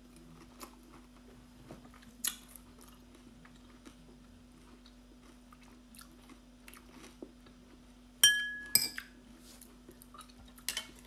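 Close-up chewing and mouth sounds of someone eating oysters, with small clicks, over a faint steady low hum. About eight seconds in, a metal spoon clinks sharply twice against the dish, ringing briefly each time.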